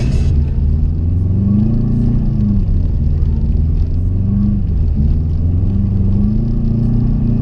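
Subaru WRX turbocharged flat-four engine running while driving, its low drone rising and falling in pitch about three times as the throttle is worked.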